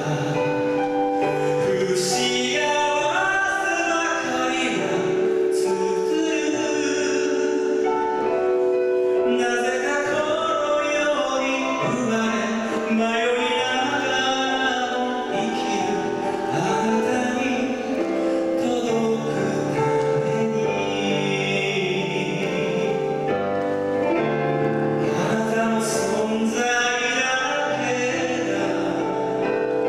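A man singing into a handheld microphone over a karaoke backing track, his voice carried through the hall's sound system.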